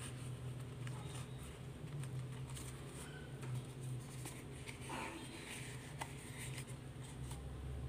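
Banana leaf rustling with scattered faint crinkles and ticks as it is rolled and folded by hand into a cone, over a low steady hum.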